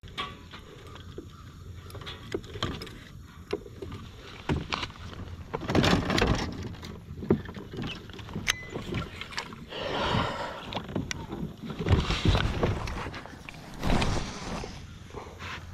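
Water splashing and sloshing around a fishing kayak in swells every few seconds, with scattered short knocks and clicks between them.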